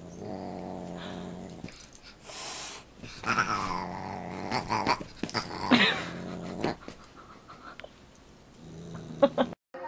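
Dog growling in play while wrestling with a cat: low growls in several bouts of a second or two, with a couple of short, sharp cries that fall in pitch. The sound cuts off abruptly near the end.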